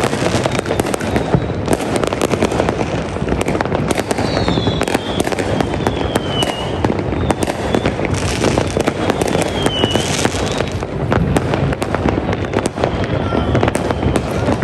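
Dense fireworks going off without pause: rapid crackling and popping bangs overlapping one another, with a few short falling whistles among them.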